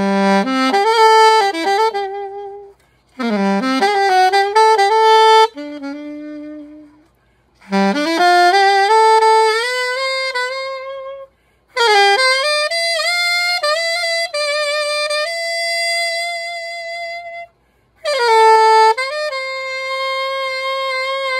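Yamaha YAS-275 alto saxophone played solo in five short melodic phrases with brief pauses between them, the later phrases ending on long held notes with gentle vibrato. This is a play test of the horn after new pads were fitted.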